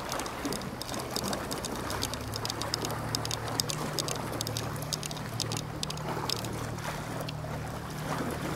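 Sea water lapping and splashing at the shore, with small crackling splashes throughout. A steady low drone joins about two seconds in and carries on underneath.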